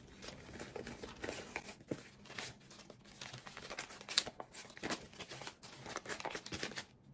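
Crumpled paper banknotes rustling and crinkling as they are handled, sorted and flattened by hand, with many irregular short crackles.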